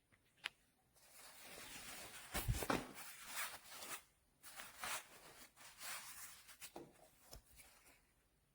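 Intermittent rustling and scuffing noises, with a sharp click about half a second in and a low thump about two and a half seconds in.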